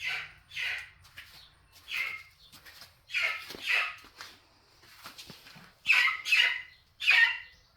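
A young pullet squawking loudly in the brooder, about eight short harsh calls, mostly in pairs, with faint scratching and rustling between them. These are the distress calls of a young chicken left alone, the last one in the brooder.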